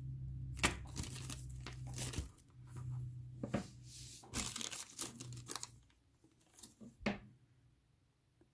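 Small plastic bags of miniatures crinkling and rustling as they are handled and opened, irregular for about six seconds, then a few light clicks and taps.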